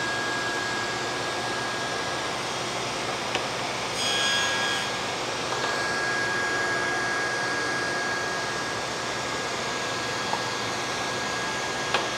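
Table saw running with its blade tilted to 45 degrees, a steady motor noise with a thin whine. About four seconds in it grows louder and brighter for a second or so as the blade cuts a bevelled relief along a wooden cleat piece.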